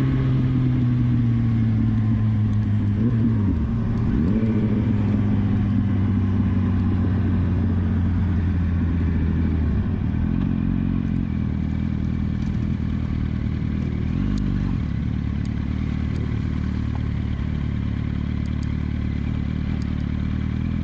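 Motorcycle engine running steadily under the rider, its pitch drifting slowly down as the bike slows, with a few brief swoops in pitch early in the ride and a clear drop in pitch about ten seconds in.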